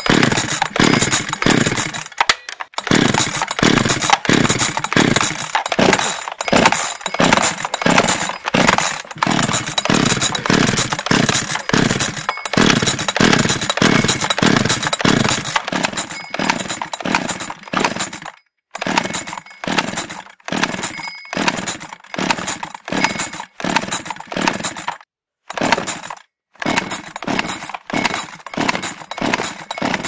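Two-stroke chainsaw being pull-started over and over, the engine cranking in quick repeated strokes without catching and running. The run of pulls breaks off for a moment a few times: a saw with starting problems.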